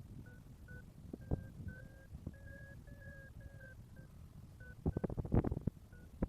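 Paragliding variometer giving its climb tone: a run of short electronic beeps, about two a second, their pitch shifting slightly from beep to beep. This is the sign that the glider is rising in lift. A cluster of loud knocks comes about five seconds in.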